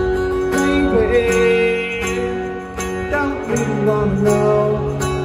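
Rock band playing live through a PA, with drums and cymbals, electric and acoustic guitars and bass.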